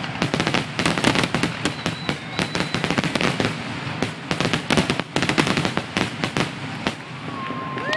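Fireworks finale barrage: aerial shells bursting in rapid, overlapping reports with crackling effects, thinning out in the last second.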